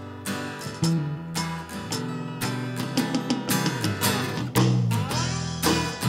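Instrumental opening of an acoustic band piece: an acoustic guitar picked and played with a brass slide, its notes gliding in pitch, over a second guitar and bass guitar.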